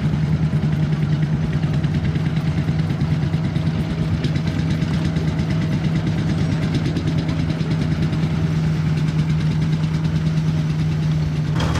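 Vintage farm tractor engine running steadily at low speed while the tractor drives slowly across a field.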